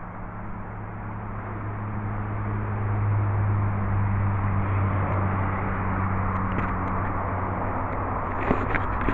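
Engine of a mowing machine running steadily out of sight, a low hum that grows a little louder over the first three seconds and then holds.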